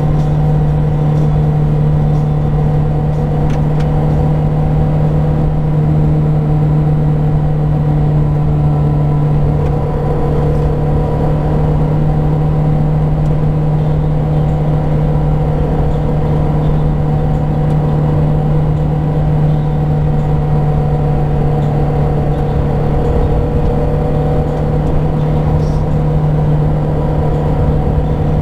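Mazda Miata's inline four-cylinder engine holding a steady 4,500 rpm or so under light load at about 55 mph, its note unchanging, heard from on the car along with road noise.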